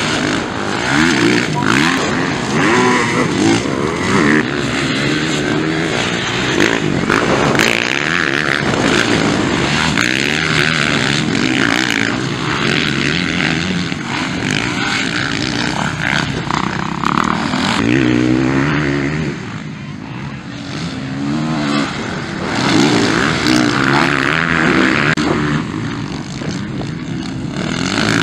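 Motocross dirt bike engines revving hard and backing off again and again while racing, the pitch rising and falling every second or two. The engine sound dips briefly about two thirds of the way through.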